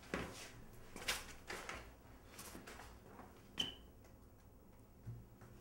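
Faint, scattered knocks and rustles of a person moving about and handling things, with a brief squeak about three and a half seconds in.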